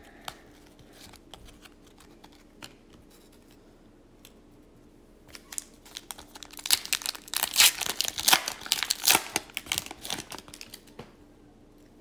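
Foil wrapper of an Upper Deck hockey card pack crinkling and tearing as it is opened by hand, dense and loud for about five seconds from around the middle. Before that there are only faint ticks of cards being handled.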